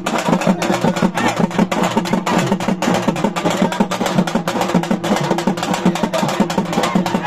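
Fast, steady drumming: many quick strokes a second over a steady low ringing tone, with no break.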